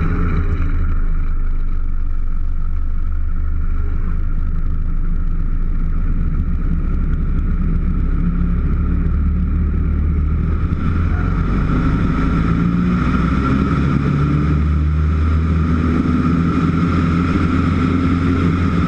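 Single-engine light aircraft's piston engine running with a steady low drone during a spin. The sound grows fuller and harsher about halfway through.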